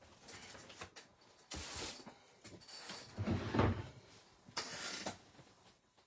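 A few short knocks and rustles of things being handled and set down, with a heavier thump about three and a half seconds in.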